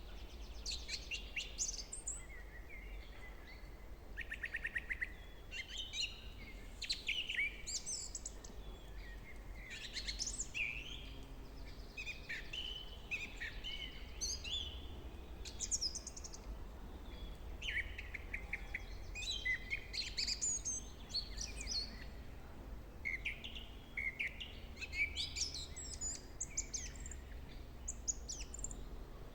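Several songbirds singing in a forest, short overlapping phrases and chirps one after another, with a quick trill about five seconds in. A low steady rumble runs underneath.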